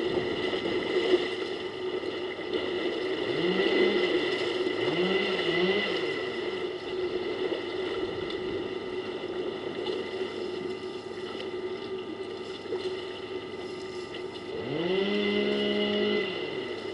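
Elephants wading and splashing in a waterhole, a steady wash of water noise. Three times a low droning sound rises, holds for about a second and falls in pitch, the last one about fifteen seconds in and the loudest.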